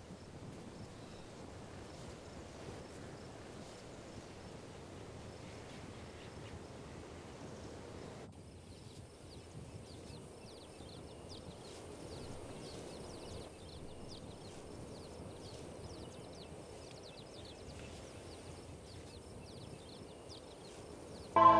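Quiet outdoor field ambience. A low even rush runs until about eight seconds in, then changes suddenly to many quick high chirps over a thin steady high tone. Music comes in right at the end.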